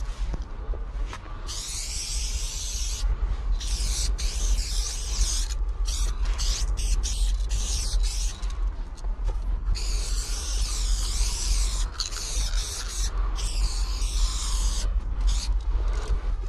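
Aerosol spray-paint can hissing as paint is sprayed onto a brick wall, in strokes of a second or two broken by short pauses, with a run of quick short bursts around the middle. A steady low rumble runs underneath.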